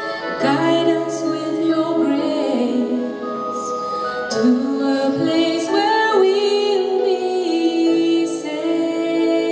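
A woman singing a slow song with long held notes into a microphone, backed by a live band with keyboard.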